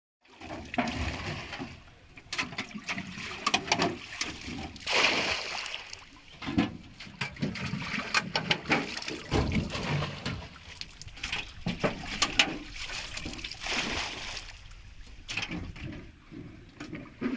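Water sloshing and splashing in irregular bursts as it is scooped out of the bottom of a motorboat with a cut-open tin can: the boat being bailed. Sharp knocks are scattered among the splashes.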